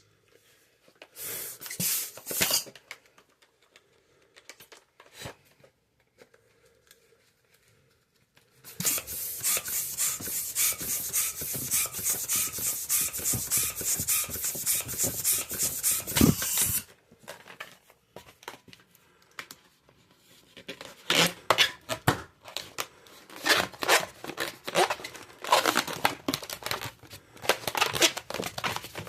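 Latex modelling balloons being worked by hand with rubbery rubbing and squeaking. There is a short burst about two seconds in, an unbroken noisy stretch of about eight seconds starting about nine seconds in, and a rapid run of squeaks and rubs through the last eight seconds.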